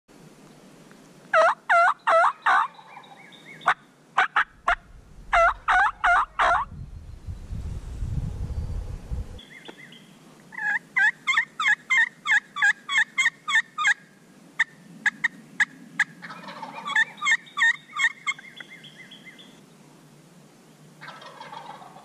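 Turkey calling: several runs of loud, quick notes, the busiest run about ten seconds in. A low rumble sounds for a couple of seconds near the middle.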